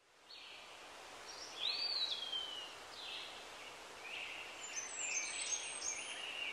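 Birds singing and calling over a steady outdoor hiss, with a clear falling whistle about two seconds in and a run of overlapping chirps later on.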